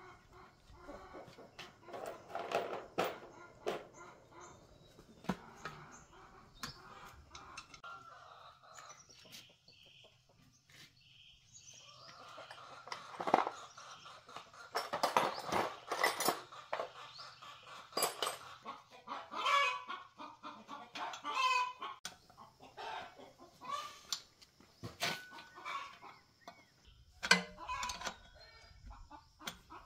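Chickens clucking and calling, mixed with short metal clinks and knocks from hand tools and parts of a small air compressor being taken apart.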